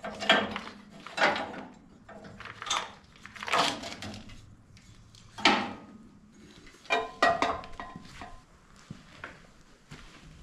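Irregular metallic clanks and rattles as old wiring and parts are worked loose and pulled out of the John Deere AMT 600's steel engine bay: a string of separate sharp knocks, the loudest a little past the middle, with two close together shortly after.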